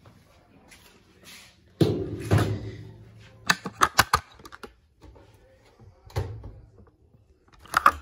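Scattered thumps and knocks, with a quick run of sharp clicks around the middle.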